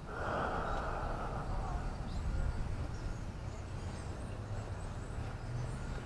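Outdoor ambience: faint bird chirps over a steady low rumble of wind on the microphone, with a short rush of noise in the first second or so.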